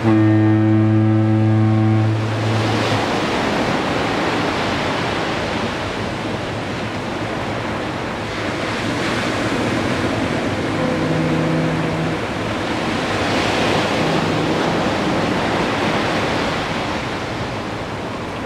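A Golden Gate Bridge foghorn sounds one loud, low blast of about two and a half seconds, followed by surf washing onto the beach in slow surges. About eleven seconds in, a fainter foghorn with a higher pitch sounds briefly, and again a few seconds later.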